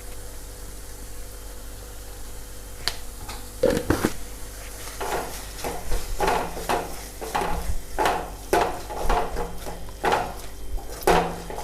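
Spoon stirring onion-tomato masala in a frying pan as chilli powder is mixed in. A single click about three seconds in, then repeated scraping strokes, about two a second.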